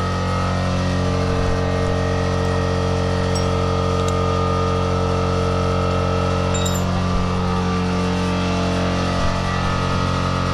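Steady motor hum, a machine running at an even speed, with a few light metallic clinks about three, four and seven seconds in.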